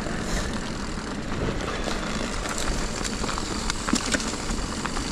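Mountain bike rolling along a trail: a steady rush of tyre and wind noise with scattered sharp clicks and rattles.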